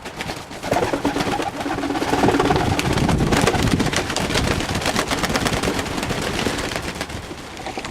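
Fantail doves in a loft, with a dense, continuous clatter of rapid clicks and rustling and some low cooing in the first few seconds.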